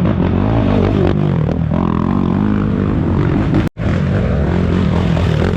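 Racing ATV engines revving and running hard, their pitch rising and falling. A brief cut to silence about three and a half seconds in.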